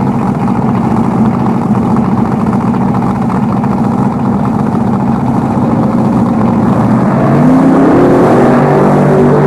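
Injected engine of a Top Comp altered drag car running loudly at a rough, steady idle. About seven seconds in, the pitch climbs and holds higher as the engine is brought up in revs.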